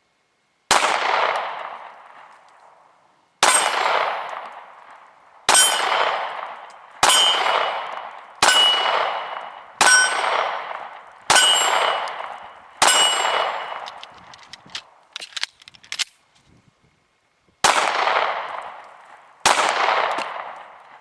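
Ten 9mm pistol shots from a Smith & Wesson Shield, each a sharp crack with a long ringing tail. Eight come at a steady pace about a second and a half apart, then there is a pause with a few small clicks, and two more shots follow near the end.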